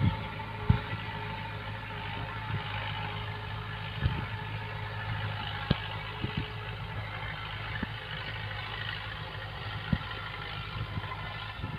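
Fiat 640 tractor's diesel engine running steadily while pulling a laser land leveler through dry soil, with a few scattered knocks and thumps.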